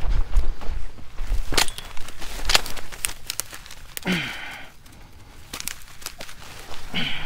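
Footsteps crunching over dry desert ground and brush, with sharp dry snaps and rustling of dry grass as a shot dove is picked up. Twice a short low grunt or breath with a falling pitch, about four seconds in and again near the end.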